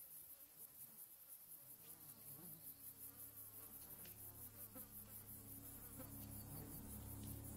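Flies buzzing faintly, with a fine high pulsing insect chorus behind them. A low steady hum fades in about a second and a half in and grows louder.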